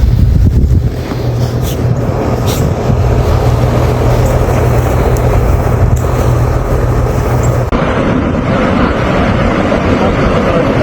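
A vehicle's steady low running rumble, changing abruptly about eight seconds in to a hissier, more even roar.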